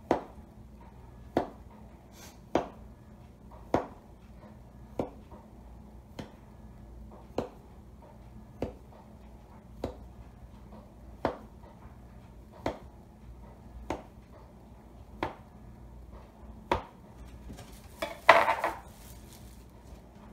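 Kitchen knife cutting through a log of soft topping dough and tapping on a plastic cutting board, one sharp tap about every 1.3 seconds, fourteen cuts in all. Near the end comes a louder crinkling of plastic wrap.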